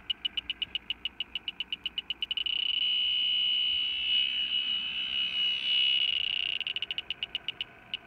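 Fieldpiece SRL8 heated-diode refrigerant leak detector alarming: its high beeps speed up into one continuous tone for about four seconds, then break back into separate beeps that slow down near the end. It is picking up R-410A refrigerant leaking from the evaporator coil.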